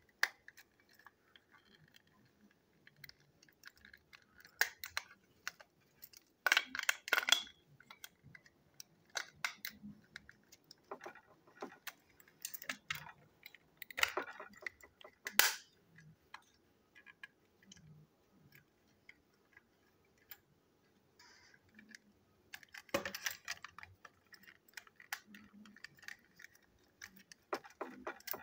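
Plastic toy locomotive handled in the hand: scattered small clicks and rattles of its plastic parts, with a few louder clusters of scraping and clattering spread through.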